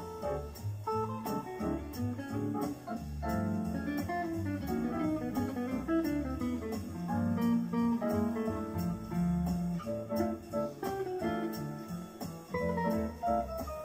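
Electric guitar playing quick single-note jazz lines. Underneath are steady low bass notes and an even ticking cymbal beat, as from a backing track.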